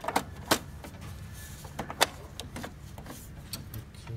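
Sharp plastic clicks and knocks from a hand working inside the open cartridge bay of an HP LaserJet M203dn laser printer, around the paper pickup roller. A low steady hum runs underneath.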